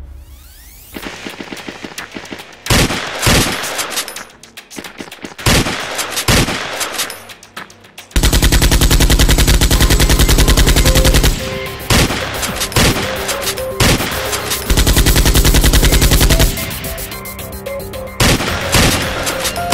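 Gunfire sound effects: single gunshots spaced a second or so apart, then two long bursts of rapid automatic fire, then a few more single shots near the end.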